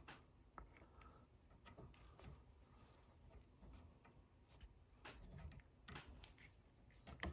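Near silence with faint, scattered ticks and rustles from fingers and tying thread wrapping marabou onto a hook in a fly-tying vise.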